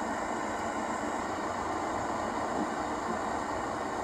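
Floodwater from heavy rain rushing in a swollen river below a bridge, a steady roar of turbulent water.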